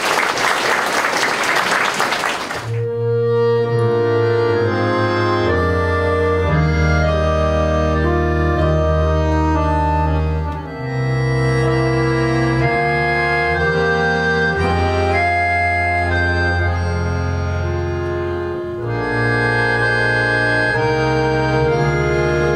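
Applause for about two and a half seconds, then an accordion quintet of four accordions and a bass accordion starts playing, with long held chords over sustained low bass notes and two short breaks between phrases.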